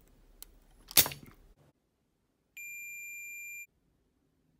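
A spring-loaded desoldering pump fires with one sharp snap about a second in. Near the middle comes a single electronic beep, one steady high tone lasting about a second.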